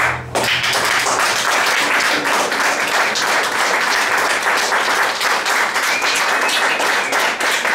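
A live audience applauding steadily. The last notes of acoustic guitar and keyboard stop at the very start, and the clapping comes in a moment later.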